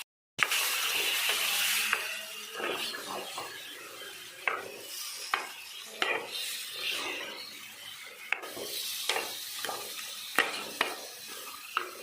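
Chicken pieces frying in oil in a pot while a spoon stirs them, scraping and knocking against the pot at irregular intervals over a sizzle. The sizzle is strongest for the first couple of seconds after a short break in the sound.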